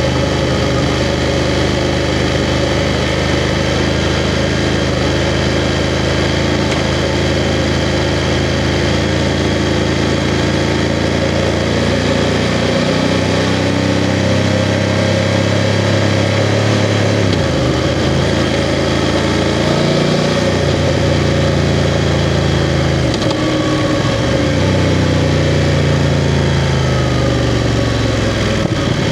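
BMW F 750 GS motorcycle's parallel-twin engine running at low, steady revs, then from about halfway its pitch rises and falls several times as the bike accelerates and eases off.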